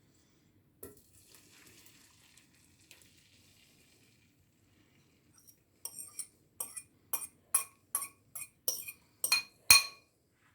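A faint sizzle from the omelette frying in the pan. Then, from about halfway through, a run of about a dozen sharp, ringing clinks of a metal utensil against a dish, roughly two a second, the loudest near the end.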